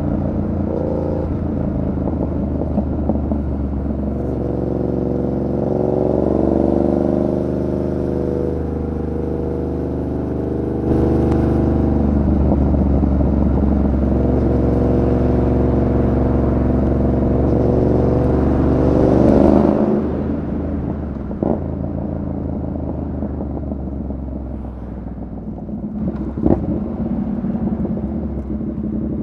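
Yamaha MT-07's 689 cc parallel-twin engine under way, its note rising as it pulls through the revs in a long climb of several seconds. Near two-thirds of the way in the throttle closes and the engine drops back, and two sharp clicks follow.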